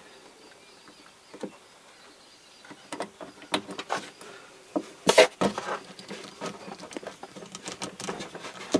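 Scattered small clicks and taps of clear plastic water tubing being worked onto a chrome fitting by hand. They start a few seconds in, with the loudest click about halfway through.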